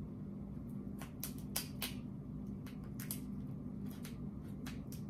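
Kitchen scissors snipping through a lobster tail's shell: a string of sharp short snips and cracks, most between one and five seconds in, over a faint steady low hum.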